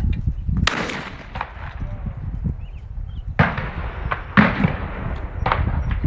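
Shotgun shots at a clay-shooting range: four sharp reports spread across a few seconds, the loudest about four and a half seconds in.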